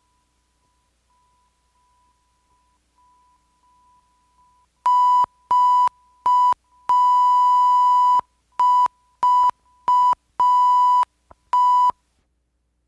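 A single-pitched electronic beep tone. It first pulses faintly and slowly grows louder. About five seconds in it turns loud and is keyed in a rhythm of three short beeps and one long, twice over, then one more short beep.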